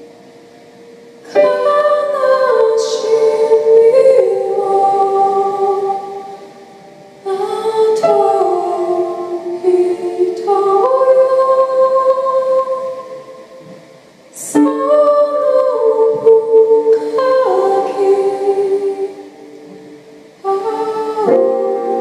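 Slow song with a Japanese traditional-music flavour: female singing in long held notes over keyboard accompaniment, in phrases that start about every six or seven seconds and fade briefly between them.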